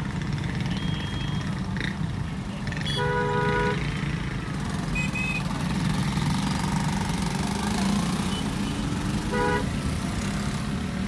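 Car horns honking in slow, congested traffic, heard from inside a car over a steady low engine and road rumble: one longer honk about three seconds in and a short one near the end.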